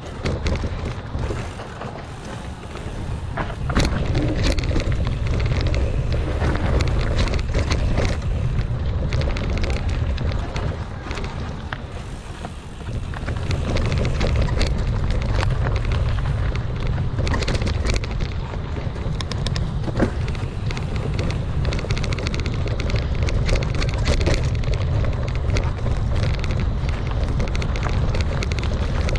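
Wind rushing over the camera microphone as a mountain bike rides a dirt trail, with tyre noise and frequent clicks and rattles from the bike over rough ground. The rush eases for a moment about twelve seconds in, then comes back.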